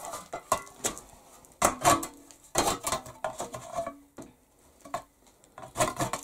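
A steel stove angle iron being scraped and knocked clean of old clay and whitewash with a hand tool: irregular metallic clinks and scrapes, with a short lull just past the middle.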